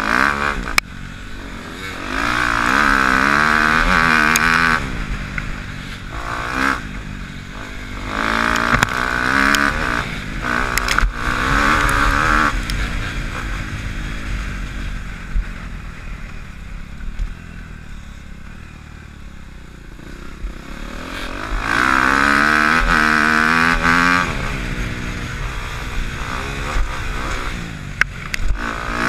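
Dirt bike engine heard from on the bike, revving up in three long pulls with the pitch rising through each and easing off between them. It drops to quieter, lower running in the middle, and there are a few sharp knocks.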